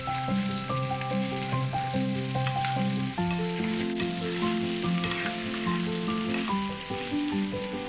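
Potato, sweet potato, carrot and pepper pieces sizzling in oil in a frying pan, stirred with a silicone spoon that gives scattered light knocks and scrapes. Instrumental background music with a steady melody and bass plays over it.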